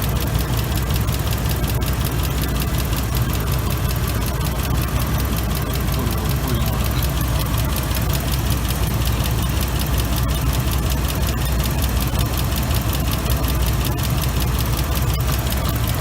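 2005 Ford F-150's engine idling steadily with the air-conditioning running while the A/C system is charged with refrigerant.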